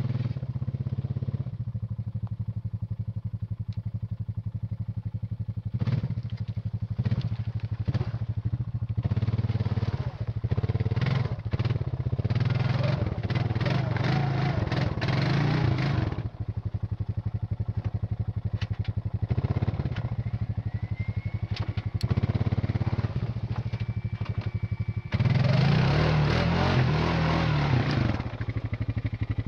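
Honda ATV engine idling steadily, with two spells of hard revving, from about nine to sixteen seconds in and again for a few seconds near the end.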